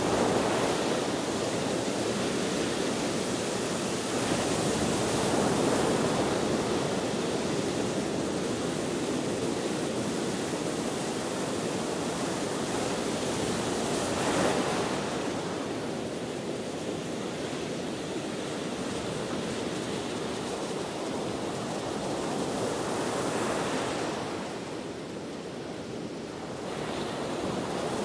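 Ocean waves breaking and washing on the shore in a continuous rush of surf, swelling and easing every several seconds, with wind blowing through it.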